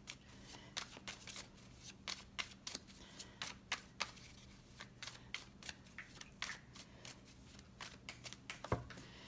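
A deck of tarot cards shuffled by hand: a run of light, irregular card clicks and flicks, with one sharper tap near the end.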